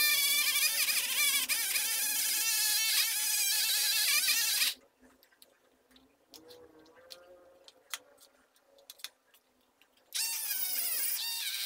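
Small handheld rotary tool with a brass wire brush, spinning against a rusty chisel, its whine wavering as it bears on the steel. It stops about five seconds in, giving way to a few light clicks and taps while the bit is swapped for a sanding drum. The tool starts up again about ten seconds in.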